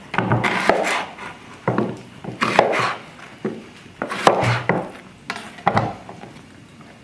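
Large kitchen knife slicing through an onion on a wooden cutting board: irregular strokes, each ending in a knock of the blade on the wood, with short scraping sounds between them.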